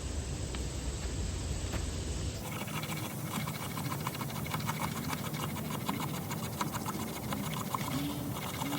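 Spine of a Victorinox Fieldmaster Swiss Army knife's saw blade scraping resinous Virginia pine fatwood into fine scrapings. It makes quick, repeated rasping strokes, which become distinct a couple of seconds in.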